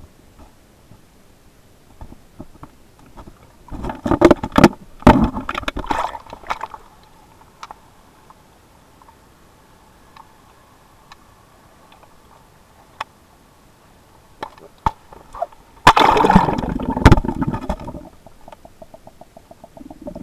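Muffled water sloshing and gurgling heard from an underwater camera in a shallow river, in two loud rushes, one a few seconds in and one about three-quarters through, with scattered knocks between.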